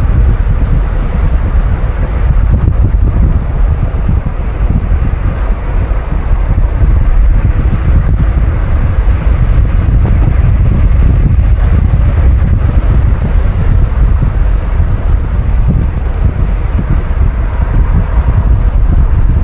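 Steady heavy wind rumble on the microphone mixed with road noise from a moving car.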